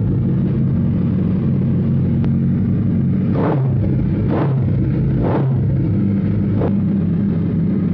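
Suzuki Hayabusa's inline-four idling through an aftermarket Brock's exhaust, blipped four times in quick succession from about three seconds in, each blip a brief rise in revs.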